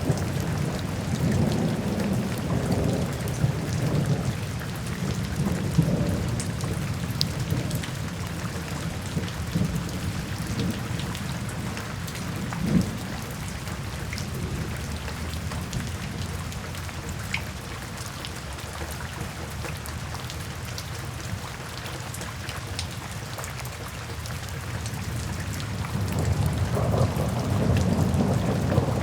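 Steady rain falling into puddles and standing water, with scattered drips, over a low thunder rumble that eases off in the middle and builds again near the end.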